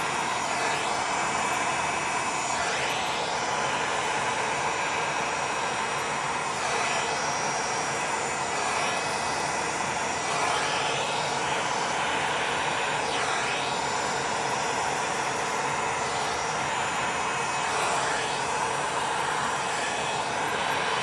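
Handheld heat gun running steadily, blowing hot air onto wet resin, the rush of air shifting slightly every few seconds as the gun is swept across the surface.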